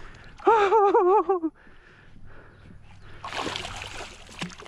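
A loud, wavering excited cry lasts about a second early on. From about three seconds in, water splashes and sloshes as a hooked catfish thrashes at the surface beside the kayak.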